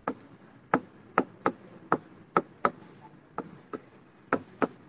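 Chalk tapping and scraping on a blackboard as words are written: an irregular run of sharp clicks, two or three a second.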